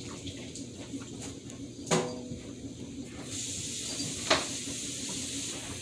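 A sharp knock with a brief ring about two seconds in. A steady high hiss comes on suddenly about a second later, with another sharp click partway through it.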